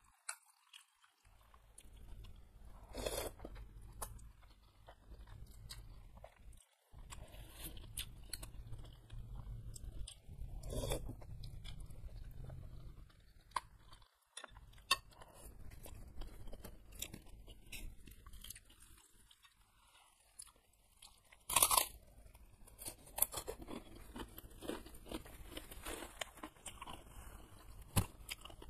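Close-miked chewing and slurping of thin noodles and beef meatballs in spicy broth, with scattered sharp clicks of a metal fork against the bowl and a few louder bursts.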